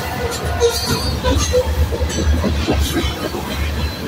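Covered hopper cars of a freight train rolling past close by: a steady low rumble with many quick clanks from the wheels and couplers, and short high metallic squeals from the wheels.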